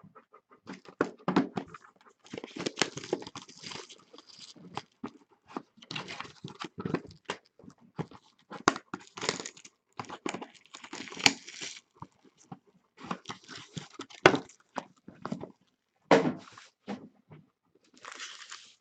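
Crinkling and tearing of trading-card packaging as sealed boxes and packs are opened, with irregular clicks and rustles of handling.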